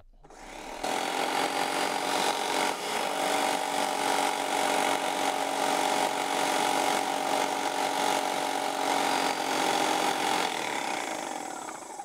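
Graco Magnum Project Plus airless paint sprayer's pump motor running with the gun trigger held open, a steady hum over a hiss of paint being sprayed through the line to flush out primer until the top coat comes through. It builds up within the first second as the pressure is wound up and tapers off near the end.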